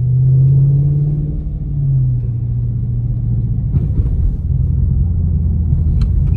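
Dodge Charger R/T's 5.7-litre Hemi V8, heard from inside the cabin while driving. A low engine drone climbs a little over the first couple of seconds, drops back at about two seconds, then settles into a steady low rumble.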